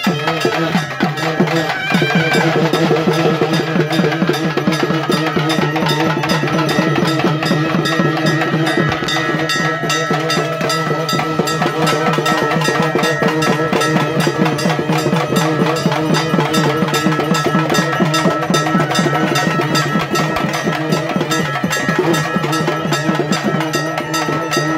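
Traditional music with fast, dense, continuous drumming, a few steady held tones sounding over it.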